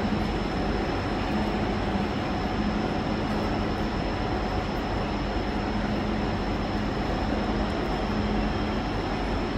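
Deutsche Bahn ICE high-speed train standing at the platform, its on-board equipment running with a steady noise and a constant high whine.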